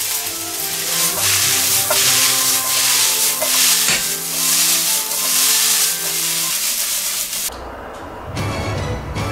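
Frozen fried rice sizzling in a frying pan over a gas burner, the hiss swelling and easing as it is stirred, with background music. The sizzle cuts off suddenly about seven and a half seconds in, leaving only the music.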